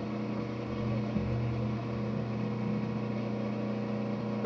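Manual lathe running at low speed, a steady machine hum.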